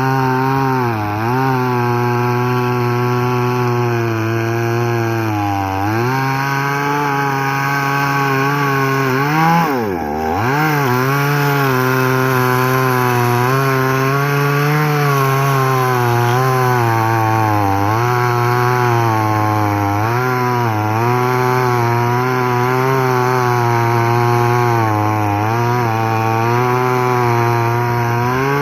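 Two-stroke chainsaw ('6000 model') running at high revs while cutting into a tree. Its pitch sags and recovers again and again as the chain bites into the wood. About ten seconds in it bogs down hard, nearly stalling, then climbs back to speed.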